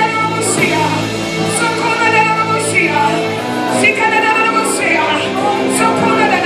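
Worship music with singing: a band with a steady beat, cymbal hits about once a second.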